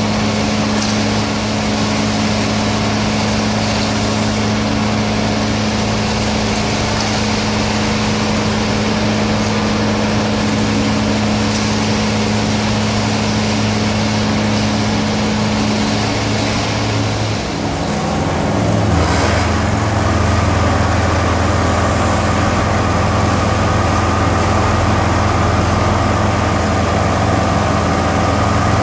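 Engine of a Somero topping spreader running steadily as the ride-on machine spreads dry-shake hardener over fresh concrete. About 18 seconds in this gives way to a deeper, slightly louder engine drone from the concrete mixer truck and the machinery at the pour.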